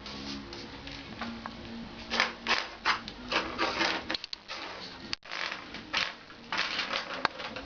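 A kitten playing with a pen: irregular bursts of scuffling, scratching and rustling with small clicks as the pen is batted and scraped about.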